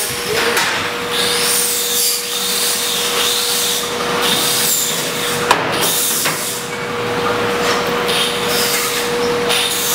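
A steady machine hum and whir runs under the handling of a black steel plate as it is lifted and fitted into a barbecue pit's chamber, with metal scraping and one sharp knock about five and a half seconds in.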